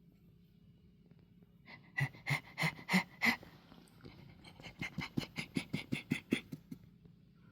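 A person's voice making rhythmic, panting monkey-like calls in two runs: about five slower calls starting about two seconds in, then a quicker run of about a dozen calls starting near five seconds.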